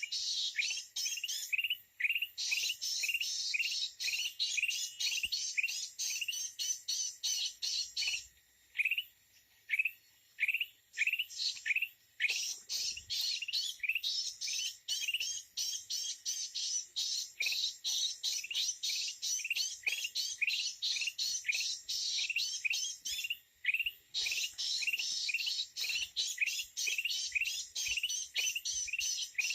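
A flock of red-eyed bulbuls calling: a short rising note repeated about twice a second, over a dense chatter of many birds that pauses briefly a couple of times.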